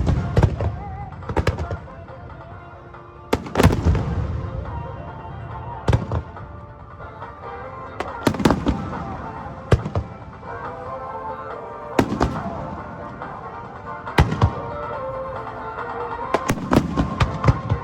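Aerial fireworks shells bursting every couple of seconds, each a sharp boom with an echoing tail, with a quick run of crackling reports near the end, over music playing with the show.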